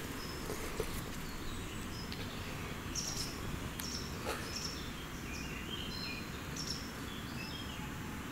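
Outdoor ambience: a steady low background hum with scattered short, high bird chirps.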